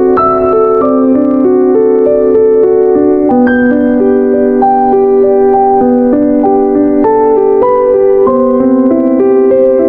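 Soft piano background music: sustained notes and chords changing every half second or so.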